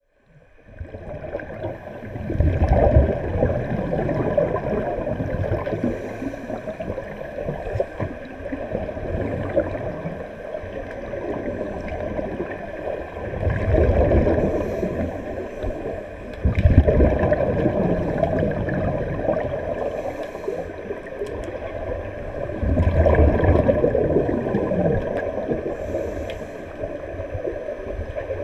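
Scuba regulator exhaust bubbles gurgling underwater, picked up by a camera submerged in a swimming pool. The gurgling comes in louder surges every few seconds over a steady underwater background with faint steady tones.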